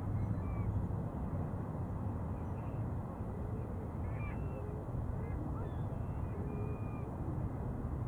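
Park birds calling off and on in short chirps and calls, some high and some lower, over a steady low rumble.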